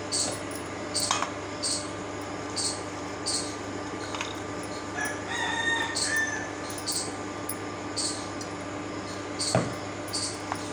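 Dal paste being scraped out of a steel mixer-grinder jar into a steel bowl, ending in a sharp metal knock about a second before the end as the jar is set down. A brief pitched sound about halfway through, a steady hum and a faint high tick repeating about every two-thirds of a second sit underneath.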